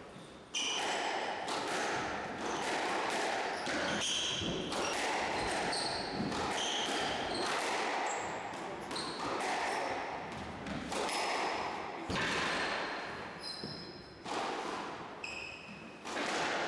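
Squash rally: a series of sharp hits as the rubber ball is struck by the rackets and smacks off the walls, starting about half a second in. Short high squeaks from players' shoes on the wooden court floor.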